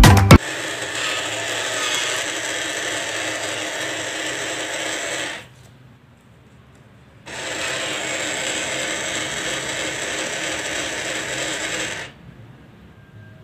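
Toy ATM money box's small geared motor whirring steadily as its rollers draw a banknote into the slot. It runs twice, each time for about five seconds, with a short pause in between.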